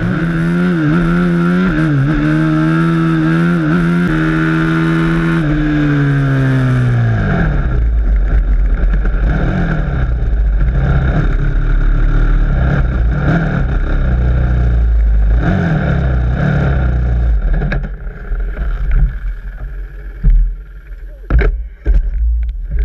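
Single-cylinder four-stroke Honda dirt bike engine pulling at steady throttle, its note wavering, then falling away as the throttle is closed about six seconds in. The bike then rolls on at low revs under a heavy rumble of wind on the bike-mounted microphone, which turns into uneven bumps and a few knocks near the end.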